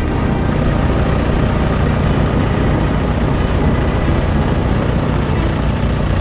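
Steady engine rumble of a heavy vehicle, as an animation sound effect.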